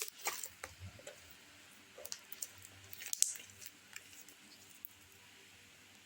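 Homemade glue slime being poked and squished by hand, giving irregular sticky pops and squelches, most of them in the first four seconds.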